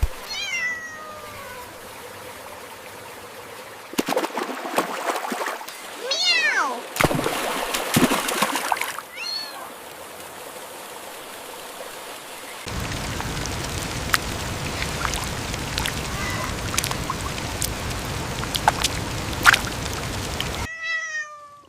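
A cat meowing several times, each call falling in pitch, with scattered clicks and rustles between them. A little past halfway a steady rushing noise starts, runs for about eight seconds and cuts off suddenly.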